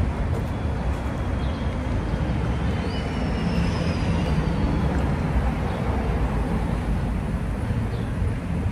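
Steady outdoor background noise, mostly a low rumble, with no clear single event.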